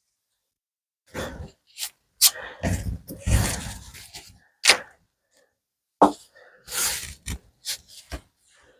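Pallet-wood slats being set down and shifted into place on a workbench: a series of sharp wooden knocks and clacks, with rougher sliding and scraping between them.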